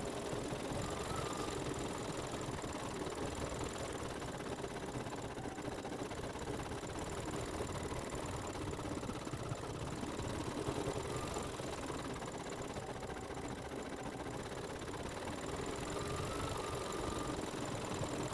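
Embroidery machine stitching steadily, its needle running in a fast, even rhythm as it sews out a design.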